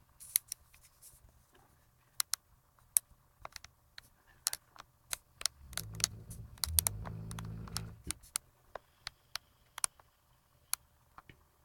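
One drawn-out snore, about two and a half seconds long, in the middle, set among many sharp, irregular clicks.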